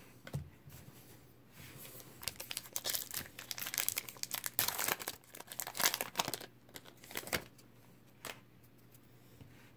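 Baseball card pack wrapper being torn open and crinkled by hand. It makes a dense run of crackling and tearing that starts after a second or so and lasts about six seconds.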